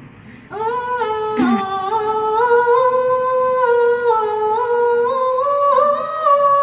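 A woman sings one long held note into a handheld microphone. It starts about half a second in, and its pitch steps gently up and down as she sustains it.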